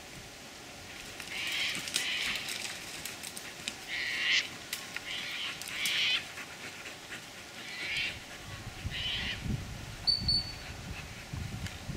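A series of about seven short, harsh animal calls at irregular intervals. Near the end there is low rustling and crunching, as of movement through brush and grass.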